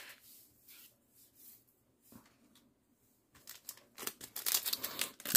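Foil Pokémon booster pack crinkling and tearing as it is ripped open by hand. A few faint handling sounds come first, then a quick, dense run of crackles from about three and a half seconds in, loudest near the end.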